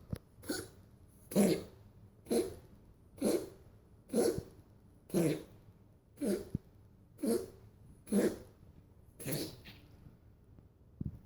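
A domestic cat wheezing in a run of short, noisy, rasping breaths, about one a second, about ten in a row with a longer pause near the end. It is a breathing problem that has lasted about a week; the owner does not know the cause and wonders about asthma or choking.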